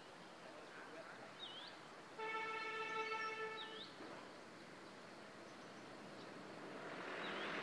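A vehicle horn sounds one steady note for about a second and a half, starting just over two seconds in. A bird chirps a few times, and near the end a truck grows louder as it approaches along the road.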